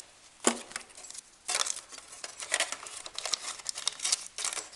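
Close handling noise: a sharp knock about half a second in, then a stretch of rustling and crinkling as a cloth pouch is handled close to the microphone.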